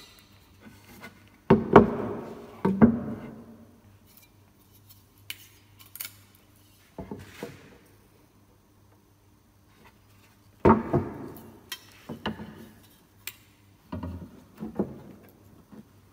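A metal double square and pieces of pine being set down, shifted and knocked against the bookcase while marking a cut: scattered sharp knocks and clinks with quiet gaps between. The loudest pair comes about two seconds in, and another cluster of knocks runs from about eleven seconds in.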